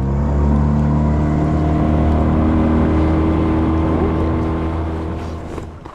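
Jon boat outboard motor running at full throttle, its pitch held steady after opening up, fading over the last second.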